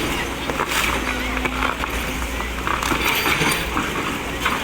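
Excavator's diesel engine running with a steady low rumble, over a dense crackle of small clicks and snaps as tree branches are pushed and broken.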